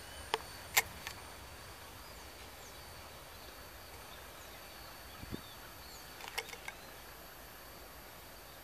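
Freight train rolling away at low speed: a faint steady rumble with sharp clicks of wheels passing rail joints, three near the start and a quick cluster about six seconds in. Birds chirp faintly.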